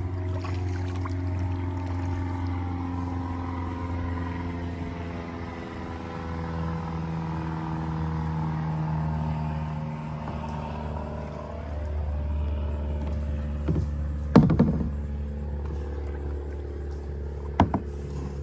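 Steady drone of a passing engine, several pitched tones slowly gliding in pitch over a low hum. Two sharp knocks near the end.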